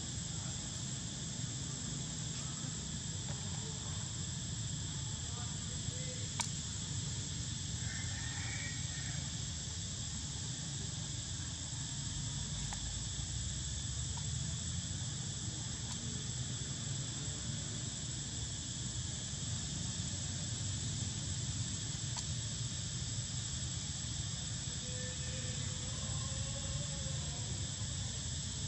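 Steady high-pitched insect chorus over a steady low rumble, with a couple of faint short calls about eight seconds in and again near the end.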